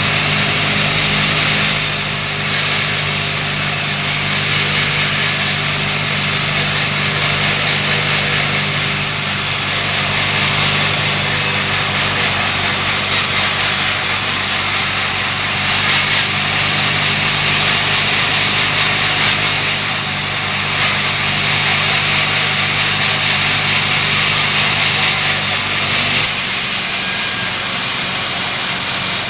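Bandsaw wood-cutting machine running steadily, its motor humming under the hiss of the blade cutting through wood; the hum changes near the end.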